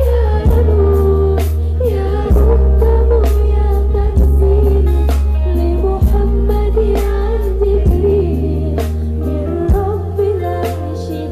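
Live gambus pop band playing loud: a woman sings a wavering, ornamented melody over heavy bass and a steady drum beat.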